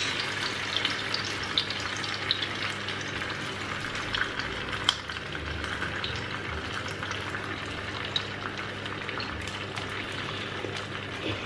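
Two alheira sausages frying in a shallow layer of olive oil in a frying pan: a steady sizzle with scattered small pops and crackles.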